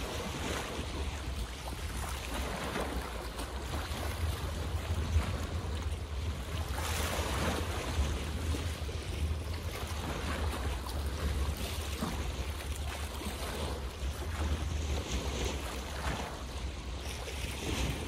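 Water splashing in small waves, the wash swelling and falling every few seconds, with wind rumbling low on the microphone.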